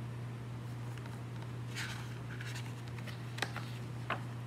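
Faint rustling and a couple of soft ticks from a hardcover picture book's paper page being handled and turned, over a steady low hum.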